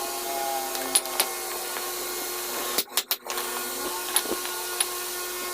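A machine running steadily with a constant hum, with a few sharp clicks over it; the sound cuts out briefly about three seconds in.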